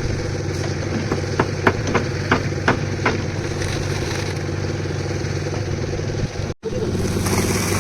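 Concrete mixer's engine running steadily, with a quick run of about six sharp knocks a second or so in. The sound cuts out for an instant near the end.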